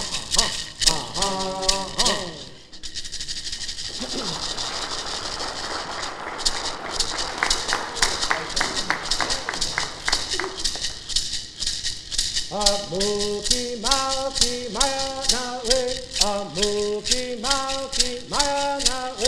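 Traditional Southern California bird song: a group of men singing in unison to hand-held gourd rattles shaken in a steady beat of about three strokes a second. A few seconds in, the rattles switch to a fast continuous shake for several seconds before the beat resumes. The voices come in again about two-thirds of the way through.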